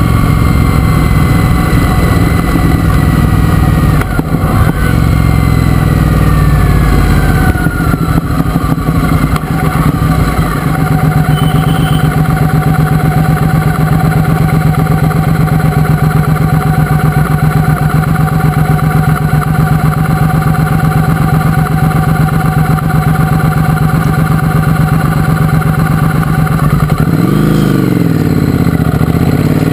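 Triumph Speedmaster's parallel-twin engine winding down as the bike slows to a stop. It then idles steadily for over fifteen seconds and revs up near the end as the bike pulls away.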